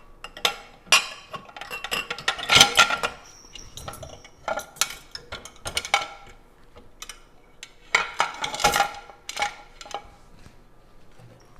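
Glasses and dishware clinking and knocking as they are set by hand into the racks of a compact countertop dishwasher: a string of separate clinks with brief ringing, busiest about two to three seconds in and again around eight to nine seconds.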